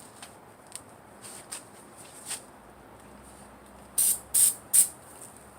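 Burning paper crackling with faint scattered ticks, then three loud, short hissing bursts in quick succession about four seconds in.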